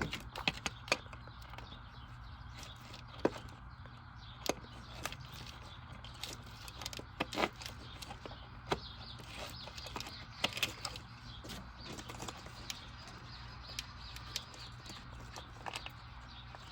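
Irregular clicks and knocks of hands and tools handling parts in an engine bay, over a steady low hum.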